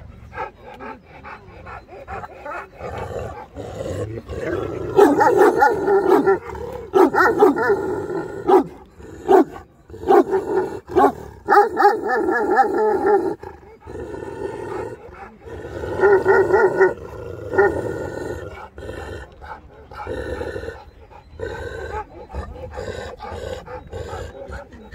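Large shepherd dogs barking, in loud runs from about five to thirteen seconds in and again around sixteen seconds, with quieter calls in between.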